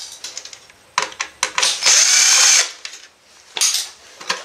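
Einhell cordless drill/driver running in one short burst about two seconds in, backing a screw out of a printer's sheet-steel frame. Sharp clicks and small metallic knocks come before and after it.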